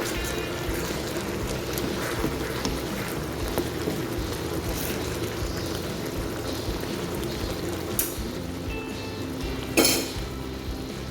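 Food sizzling steadily in a cooking pan, with a few light utensil clinks and one sharp knock near the end, over background music.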